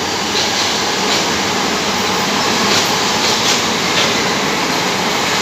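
Southern electric multiple-unit train passing through the station at speed without stopping: a loud, steady noise of wheels on rails, with a few faint clicks.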